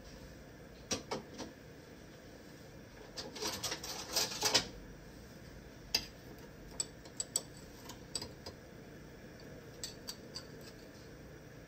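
Scattered light clicks and taps, with a quick run of them about three to five seconds in.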